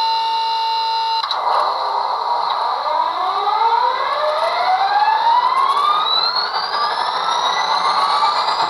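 Sound decoder of an HO scale Rapido F40PH-2D model (ESU LokSound) playing through the model's small speaker. A steady multi-tone sound cuts off about a second in. Then the simulated EMD diesel engine revs up, with a whine that rises steadily in pitch for several seconds.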